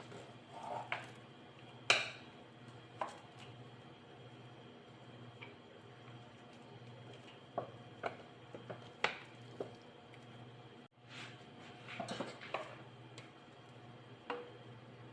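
Stirring utensil knocking and scraping against a cooking pot as glutinous rice is stirred in for biko, irregular clinks over a steady low hum.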